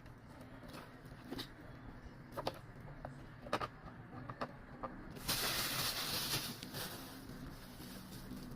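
A package being handled and unwrapped: scattered light clicks and taps, then about five seconds in a loud rustle lasting a second or two, like plastic packaging crinkling.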